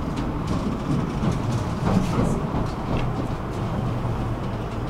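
Tram running along its track, heard from inside the passenger cabin: a steady low rumble of wheels and running gear with a few faint clicks, swelling slightly about two seconds in.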